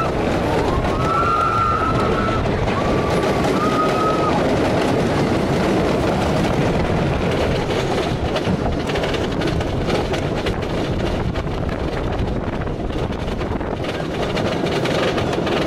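Wooden roller coaster train rolling along its track with a steady rumble, with a few short wheel squeals in the first few seconds. From about halfway in, while it climbs a steep hill, a fast run of clicks sounds over the rumble.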